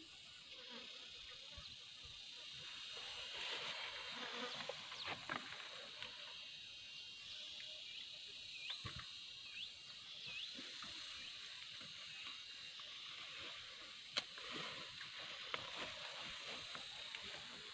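Steady high-pitched chorus of insects, with scattered rustling and brushing of leafy plants as someone moves through tall weeds. Three short chirps come a second apart about nine seconds in.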